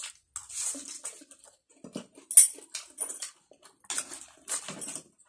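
Close-up eating sounds: instant noodles being slurped and chewed with wet mouth smacks and clicks in irregular bursts, with one sharp louder slurp or smack a little past halfway.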